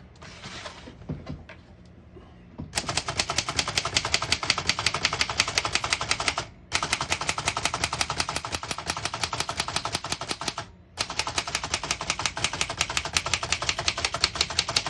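Antique Remington portable typewriter typed in a fast, continuous run of key strikes, beginning about three seconds in and pausing briefly twice, as a line is typed out toward the right margin.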